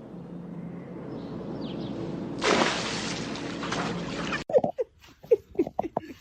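Water-like rushing noise, as of pouring or running water, that swells about two and a half seconds in and cuts off suddenly about two seconds later. It is followed by a rapid run of short, high squeaky notes.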